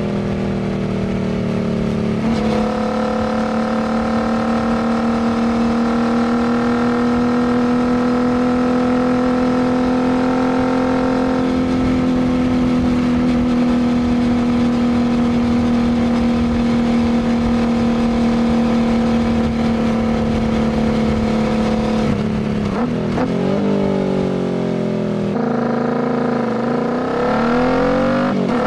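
Royal Enfield Continental GT 650's 648 cc parallel-twin running through an aftermarket Diablo full exhaust, heard from the saddle while riding. It holds a steady engine note for most of the stretch. Near the end the revs drop and swing down and up several times, then climb again.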